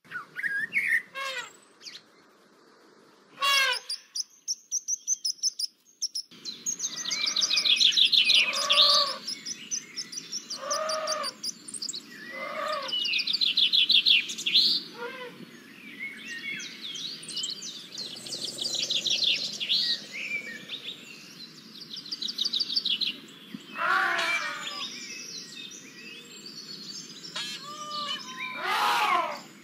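Several wild birds calling and singing, with fast high trills and repeated lower whistled notes over a steady background hiss.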